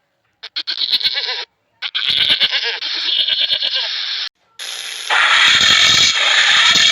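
A goat bleating: a short call, then a longer wavering bleat of about two and a half seconds. A loud, rough, noisy sound takes over a little before the end.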